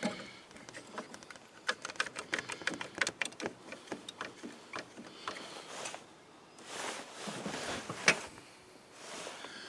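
A one-handed trigger bar clamp being ratcheted tight on a tractor cab's metal cross member: a run of sharp, irregular clicks, then a couple of brief handling sounds near the end.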